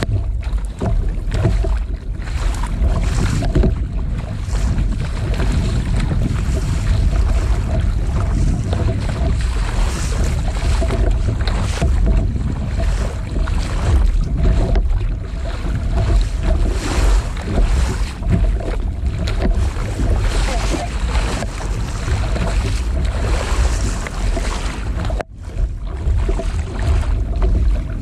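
Wind buffeting the microphone over the splashes of a double-bladed kayak paddle dipping into the sea, stroke after stroke, with water washing against the hull. The paddling stops near the end.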